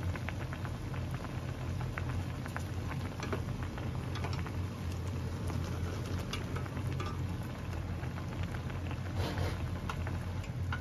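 Instant ramen broth boiling in a thin aluminium pot: an even crackling bubble with many small pops, over a steady low hum.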